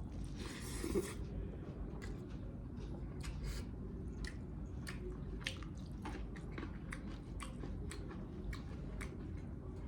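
Close-miked chewing and biting of spicy mutton pieces: wet, smacking mouth clicks several times a second, with a short hiss near the start.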